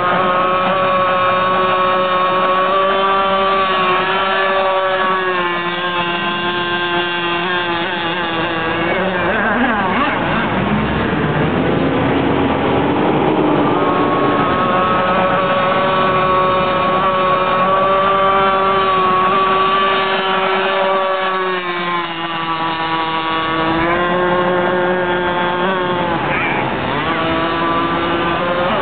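Cracker Box boat's engine running hard and continuously. Its pitch drops for a few seconds about a third of the way in and again near the end, then rises back as it speeds up.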